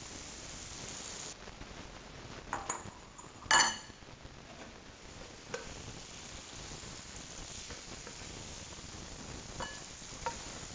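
Red chili strips frying in oil in a pan, a steady sizzle. A few sharp clinks of a utensil or dish ring out over it, the loudest about three and a half seconds in, and there are lighter clicks near the end as the chilies are lifted onto a plate.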